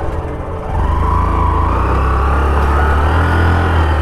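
Single-cylinder engine of a Hero Passion commuter motorcycle running under throttle on a muddy, waterlogged dirt track. The engine sound dips briefly, then picks back up and holds steady from about a second in.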